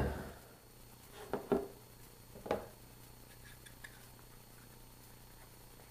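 A few light knocks and clinks of metal parts being handled at an engine block, two close together about a second and a half in and one near two and a half seconds, then only faint small taps.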